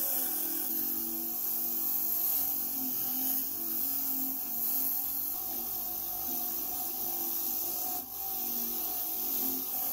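Wire brush scrubbing rust and old paint off the metal body of an old padlock: a continuous scratchy rasping, with a brief break about eight seconds in.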